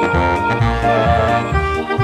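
Background music: a bouncy accordion- or organ-like melody over a steady bass beat.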